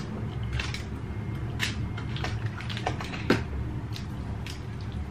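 Roast duck being torn apart by hand over crinkly aluminium foil: scattered light clicks and crackles, with one louder snap a little past three seconds in.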